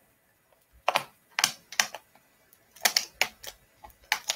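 A small cardboard product box being handled and opened: a handful of sharp crackles and taps, unevenly spaced, like paperboard flaps and packaging being worked by hand.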